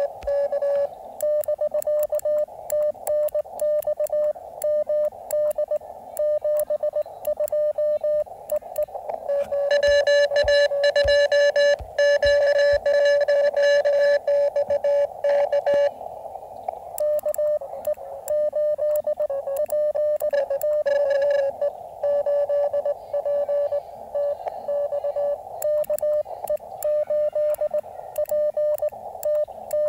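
Morse code (CW) from a portable QRP transceiver: a tone of about 600 Hz keyed in dits and dahs as a call is sent on a paddle, with faint sharp clicks throughout. From about 10 to 16 s the tone is louder and harsher, with a buzzy edge.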